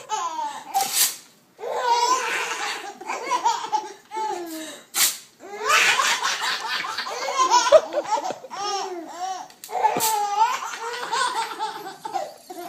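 Babies laughing in repeated bursts of giggles and laughs, with a few short, sharp noises in between.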